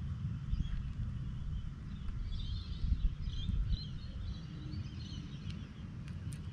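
A low, steady rumble of outdoor background noise with birds chirping faintly, mostly from about two to four seconds in.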